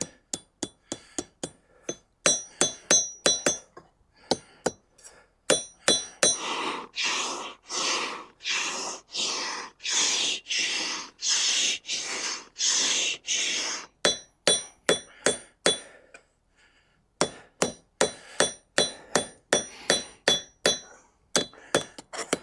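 Hand hammer striking hot steel on a small anvil in quick, ringing blows, about three a second. In the middle comes a run of about a dozen longer rasping strokes, roughly one every 0.6 s, and then the hammering takes up again.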